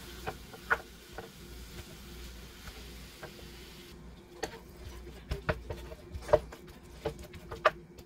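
Wooden spoon breaking up and stirring ground beef and onions in a nonstick frying pan, with a light sizzle and sharp knocks and scrapes of the spoon against the pan, more of them in the second half.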